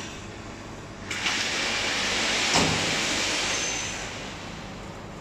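Electric dough sheeter starting about a second in, its belts and rollers running with a steady hiss as a block of laminated croissant dough passes through, with one knock midway; the running eases off near the end.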